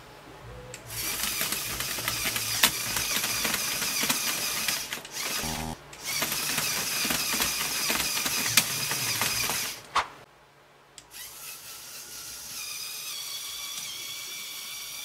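Lego Technic electric motors driving plastic gear trains, whirring and rattling in two runs of about four seconds with a short stop between and a couple of sharp clicks. After a pause about ten seconds in, a quieter, higher motor whine takes over.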